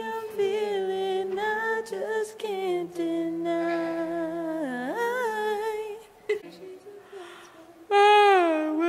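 Women's voices humming and singing held notes as a vocal warm-up, two pitches sounding together at first. The voices fall away about six seconds in, then a louder held note begins about eight seconds in and slides downward.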